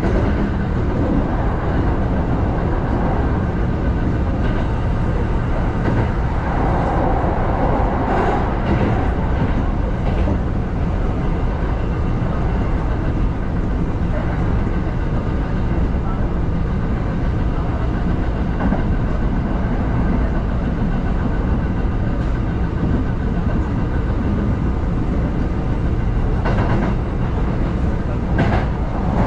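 Electric commuter train running along the track, heard from inside the driver's cab: a steady rolling rumble of wheels on rails, with a few sharp clicks near the end.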